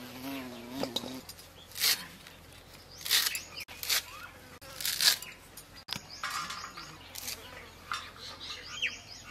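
Short crisp strokes of a boti blade slicing through fresh coriander stems, about one a second, with birds chirping in the background.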